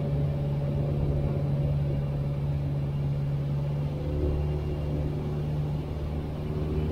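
Piper PA-22 Tri-Pacer's piston engine and propeller running steadily in level cruise, heard from inside the cabin as an even low drone. A deeper hum grows slightly stronger about four seconds in.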